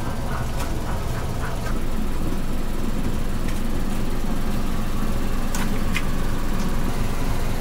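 A steady low rumble with a few sharp clinks of a metal ladle against the pot and bowls, two of them about five and a half and six seconds in.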